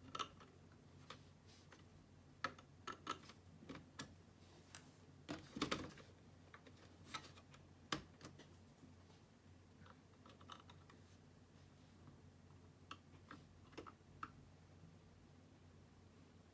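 Scattered light clicks and taps from a laptop being handled, over a quiet room: a cluster in the first half, the loudest about six seconds in, then only a few by the end.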